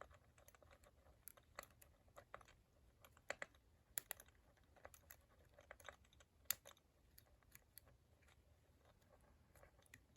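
Faint, irregular small metallic clicks and ticks of lock picking tools working the pin tumblers of an all-brass Wilson Bohannon padlock.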